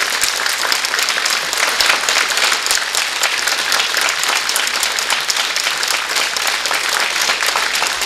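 Studio audience applauding steadily: many hands clapping at once, with no break.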